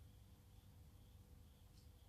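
Near silence: low room hum, with one faint click of plastic model-kit parts being handled near the end.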